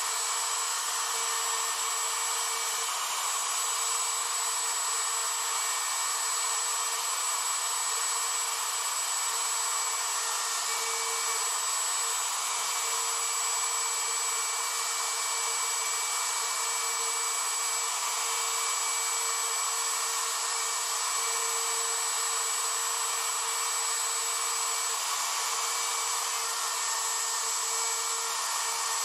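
CNC router running steadily while its spindle and engraving bit cut lettering into a board: an even whir with a thin high whine over it.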